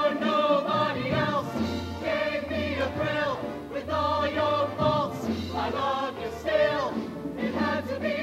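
Mixed show choir of male and female voices singing a lively number in harmony, with a bass line under the voices.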